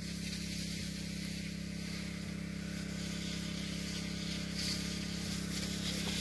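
Small engine of an orchard power sprayer running at a steady speed, a constant hum that never changes pitch, with a steady hiss above it.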